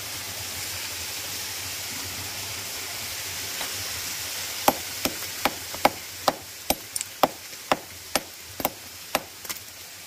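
A geologist's rock hammer striking a quartz-veined rock face about a dozen times, roughly twice a second, chipping off a sample. The strikes start about halfway in, over the steady rush of a waterfall.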